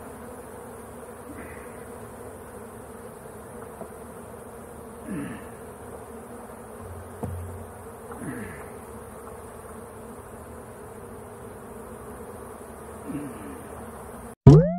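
Honeybees buzzing around an open hive in a steady hum, with single bees flying close past now and then, each a short buzz that drops in pitch as it goes by. Near the end there is one loud knock, and then the sound cuts off.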